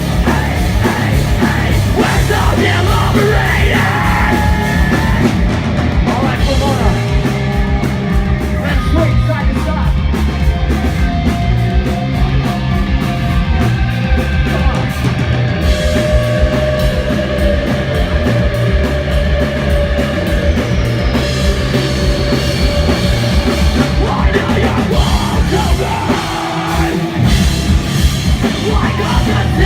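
Live punk rock band playing loud: distorted electric guitars, bass and drum kit, heard as a concert crowd recording.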